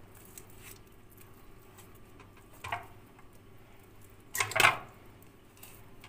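Quiet hand-peeling of fire-roasted eggplant, the soft charred skin pulled off with two short squishy rustles, the louder one about two-thirds of the way through.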